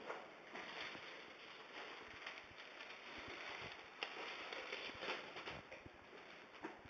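Faint footsteps on a hard floor, irregular, with a few sharper light taps.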